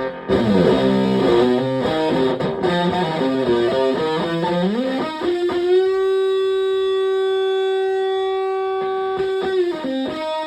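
Electric guitar (a Stratocaster) played through a Tone Bender MKII-style fuzz pedal into a Twin Reverb-style amp. A fast run of notes is followed by one long sustained note held about four seconds, then a quick slide to another note near the end.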